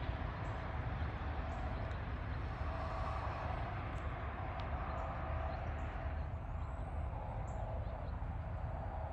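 A steady, low outdoor rumble of distant engine noise, with faint, scattered bird chirps above it and one short rising chirp a little past the middle.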